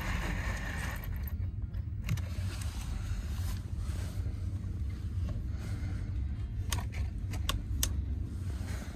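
Cordless drill whirring briefly as it drives a screw into the base of a wall-mounted reading light, over a steady low rumble. In the second half come several sharp clicks as the light's push-button switch is pressed.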